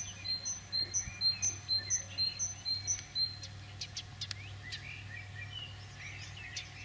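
A small songbird singing: a high two-note phrase repeated about twice a second, giving way after about three seconds to sharp chirps and varied warbling. A faint steady low hum runs underneath.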